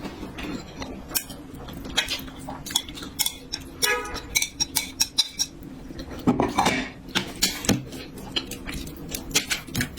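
Eating utensils clicking and clinking against dishes and bowls, many short sharp knocks, with a brief squeak about four seconds in.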